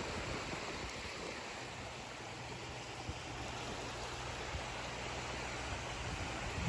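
Steady rushing of water with wind, with a low steady hum joining about a second and a half in.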